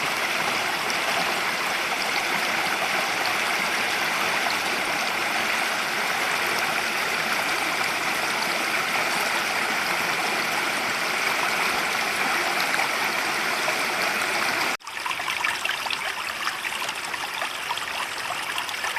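Forest creek running water, a steady rushing with gurgling. About three-quarters of the way through it breaks off for an instant and resumes as a choppier, more splashy flow.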